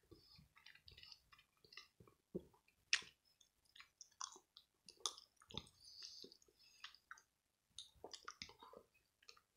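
A person chewing a mouthful of cheese, peanut butter and ham sandwich close to the microphone: faint, irregular wet mouth clicks, with a sharper click about three seconds in.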